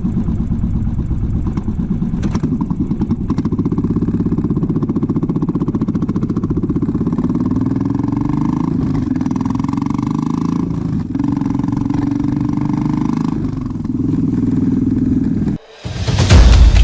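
Royal Enfield Bullet single-cylinder engine running, its exhaust beats closely spaced, with the pitch rising and falling a little as the throttle is blipped. It cuts off abruptly near the end, and music with drums starts.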